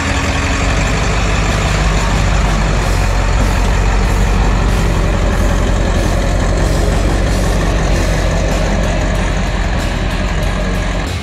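Ford 7.3 Powerstroke turbo-diesel V8 engine in a lifted Bronco running at low speed as the truck crawls over rocks close by, a steady heavy drone that is loudest as the truck passes overhead.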